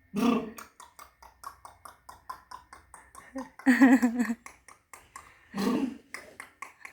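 A young child making mouth noises while playing with spit: a rapid run of short clicks and smacks, about four to five a second, broken by three brief voiced sounds near the start, in the middle and near the end.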